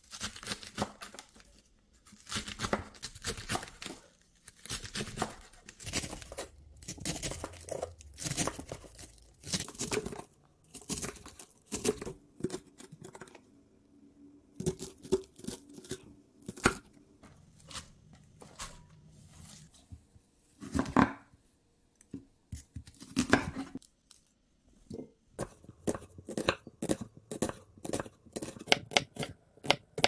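Chef's knife slicing through raw cabbage on a wooden cutting board: crunching strokes in bursts as the leaves are shredded and then cut across. Near the end, a run of quick, even chops as an onion is minced.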